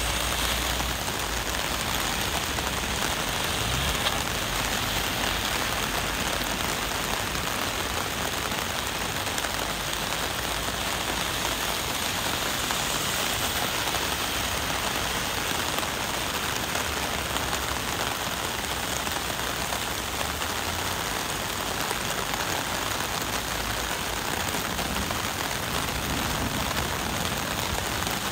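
Heavy rain falling steadily on a paved street and sidewalk, a dense, even hiss of drops splashing on wet pavement and in puddles.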